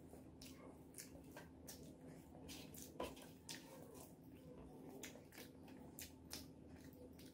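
Faint, wet squishing and clicking of eating by hand: fingers kneading rice with curry and the mouth chewing. The clicks come a few a second, with one sharper click about three seconds in.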